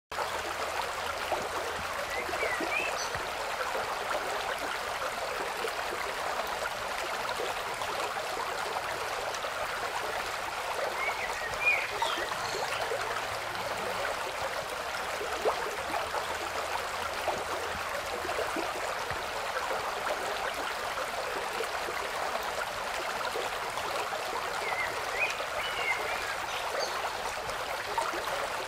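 Steady rushing and trickling of a running stream, with a few short high chirps about two seconds in, around twelve seconds and near the end.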